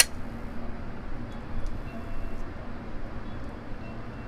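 Steady background rumble of an indoor shooting range, with one sharp click right at the start and a few faint ticks. No shot is fired yet.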